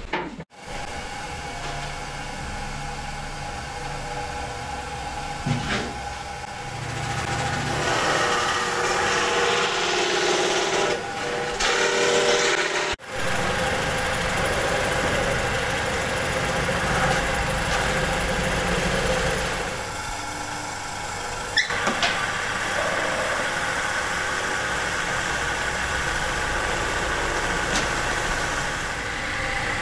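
Small belt-driven wood lathe running steadily while a hand tool is held against the spinning lacquered wooden pot, with two brief breaks in the sound.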